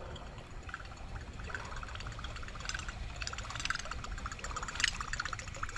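Small creek's water trickling steadily, with scattered light clicks.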